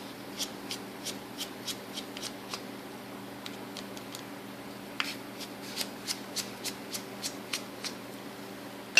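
Two runs of small, sharp ticks, about three or four a second, as the two small screws of a Shimano Chronarch 101A baitcasting reel are backed out with a screwdriver. The second run starts about halfway through. A steady low hum sits underneath.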